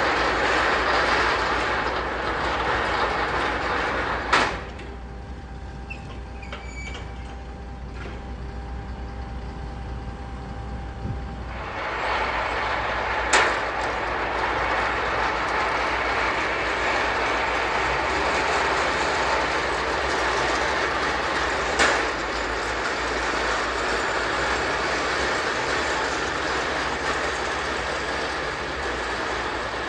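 Steel wheels of a shipyard haul-out cradle rolling on rails, a steady grinding rumble with three sharp clicks spread through it. For about seven seconds, from about four seconds in, it drops to a quieter hum with faint steady tones, then returns.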